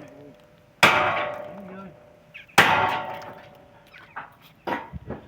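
Hammer blows on steel, two heavy ringing strikes about two seconds apart, followed by a few lighter knocks near the end.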